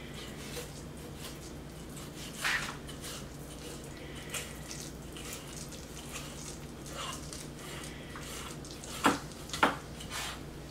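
Faint wet squelching and scraping of a knife working raw snapper flesh off its belly bones. Two sharper clicks come near the end.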